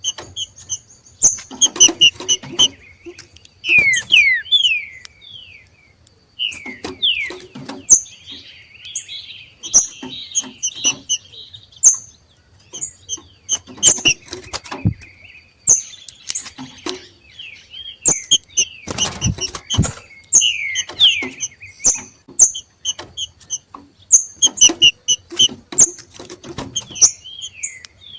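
Green-winged saltators (trinca-ferro) giving their 'macheado' calls: bursts of short, sharp high chirps mixed with quick falling whistled notes, and a scratchy chattering stretch about a third of the way in.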